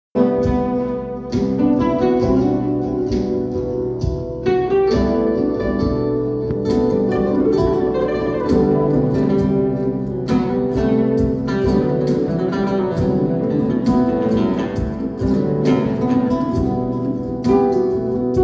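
Acoustic guitar played live: a rapid stream of plucked notes broken by sharp, full-chord strokes.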